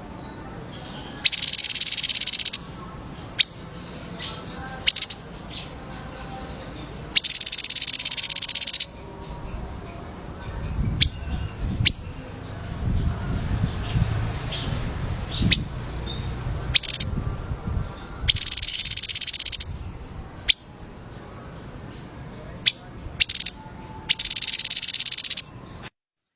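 Recorded songbird song: four dense, high, rattling trills of about a second and a half each, with single sharp high chirps between them, over a low background hum. The sound cuts off abruptly near the end.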